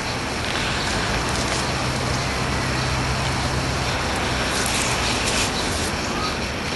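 Steady outdoor rushing noise with no distinct event standing out, and a faint low hum through the middle of it.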